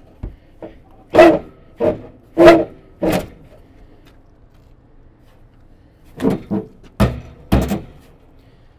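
Loud metallic clanks and knocks of sheet-metal heat exchanger housing being handled and shifted, each with a short ring: four strikes about a second apart, then a quick cluster of three or four more near the end.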